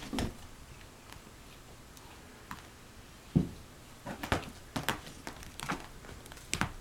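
Scattered light rustles and taps, growing busier in the second half, with one louder thump about three and a half seconds in: cats playing with a toy.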